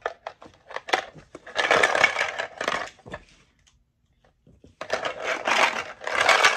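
Plastic shapes rattling and clattering inside a hollow Green Toys plastic shape-sorter ball as it is shaken, in two bouts of about a second and a half each, with a few separate plastic clicks and knocks before the first.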